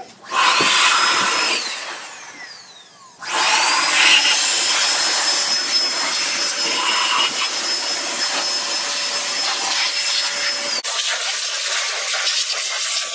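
Handheld electric blower switched on, spinning up with a rising whine, then winding down with a falling whine. It is started again about three seconds in and runs steadily, blowing dust off the air-cooled compressor. Its sound changes abruptly near the end.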